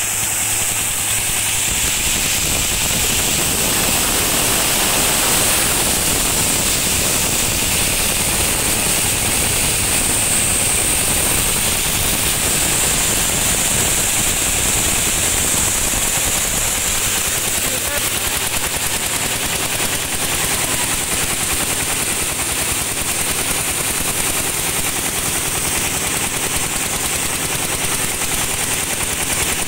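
Single-cylinder diesel engine of a two-wheel tractor running steadily under load, belt-driving a coffee huller that is milling dried coffee cherries. Its rapid firing beats mix with a steady high hiss and rattle from the huller.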